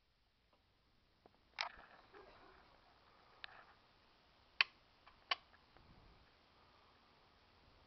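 Handling noise on a scoped air rifle and the camera behind its scope: a knock about one and a half seconds in, a fainter click, then two sharp clicks less than a second apart.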